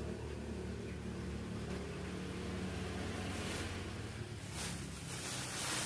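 A motor vehicle engine running steadily, fading a little at the start, with a few brief rustles in the second half.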